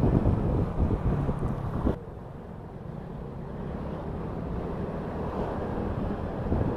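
Wind buffeting a helmet-mounted microphone over the steady rumble of a motorcycle riding in traffic. About two seconds in the noise drops abruptly to a quieter hum, which then slowly builds again.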